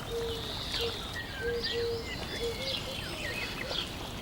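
Birds chirping and calling over a faint steady hiss: quick high chirps and short slides in pitch, with a lower short note repeated several times.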